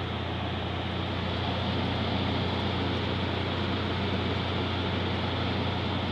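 Midea 5000 BTU window air conditioner's fan running on low setting: a steady airy whoosh over a constant low hum.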